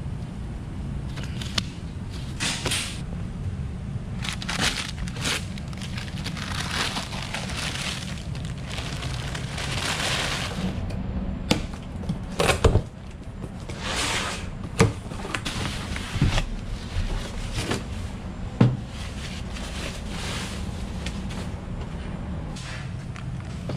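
Handling noises of parts being fitted and unpacked: scattered clicks and knocks of plastic and metal, a cardboard box slit open and its packing paper rustling, over a steady low hum.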